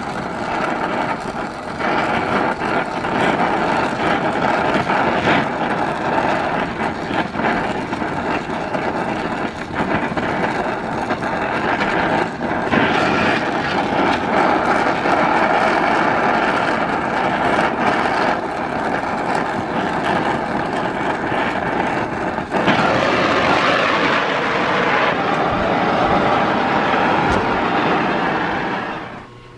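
Brazing torch flame burning with a steady loud hiss as brass is built up on a cast-iron piston. The hiss turns brighter about three-quarters of the way through and stops near the end.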